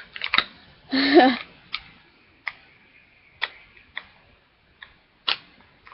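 Irregular clicks and taps, about seven of them, from handling an action figure while fitting it onto its display stand. A short voiced hum from a person about a second in.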